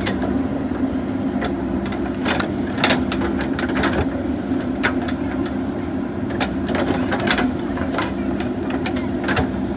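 JCB 3DX backhoe loader's diesel engine running steadily under work, with frequent sharp clanks and knocks scattered irregularly through it.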